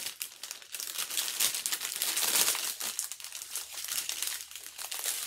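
Small plastic bags of diamond-painting drills crinkling as they are handled, a continuous dense crackle.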